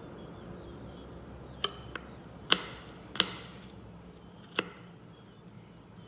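Knife chopping on a cutting board: four sharp strikes at uneven intervals, with a faint extra tap just after the first.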